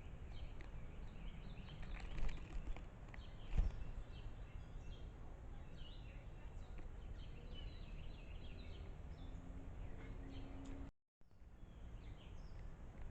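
Small birds chirping repeatedly over steady background hiss, with two louder thumps about two and three and a half seconds in, and the sound cutting out briefly near the end.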